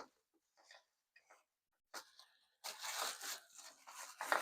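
Packaging being handled and unwrapped during an unboxing. A few faint small sounds come first, then a sharp click about two seconds in, then a crinkling rustle and tearing through the second half.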